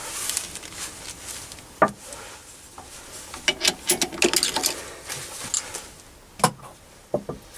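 Three-jaw lathe chuck being loosened with a chuck key and a metal bar lifted out of its jaws: scattered metal clicks, clinks and knocks. There is a sharp knock about two seconds in, a quick run of clinks in the middle, and a few more knocks near the end.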